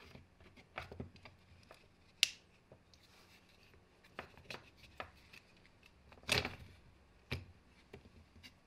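Handling sounds from a hammer drill being taken apart: scattered clicks, knocks and rubs of metal and plastic as the aluminium gear housing is worked loose and lifted off the motor and plastic body. The sharpest click comes a little after two seconds and the loudest clatter a bit past six seconds.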